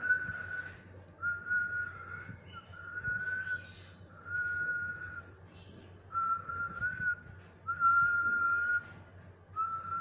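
Black-capped lory whistling one level, slightly wavering note over and over, about seven whistles each close to a second long with short gaps between them.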